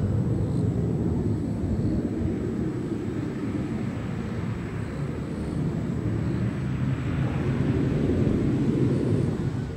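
Boeing 737-800 airliner's CFM56-7B turbofan engines in flight, a steady low jet rumble that eases off slightly midway and swells again, with a faint thin high whine over it.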